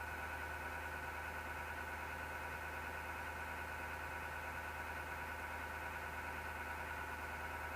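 PC power-supply fan running with a steady grinding drone and a high whine on top, a sign that the fan is running dry and unlubricated.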